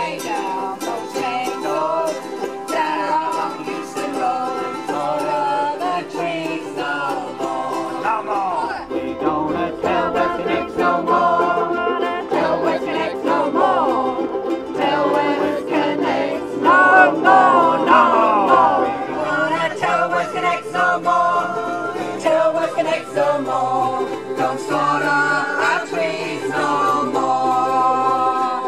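A ukulele band playing: many ukuleles strummed together with a guitar, and a group of voices singing a folk-style song.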